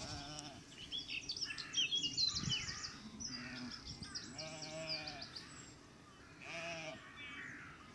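Sheep in a flock bleating, with three wavering bleats: one near the start, one in the middle and one near the end. Fast, high-pitched chirping runs through the first half and is the loudest sound.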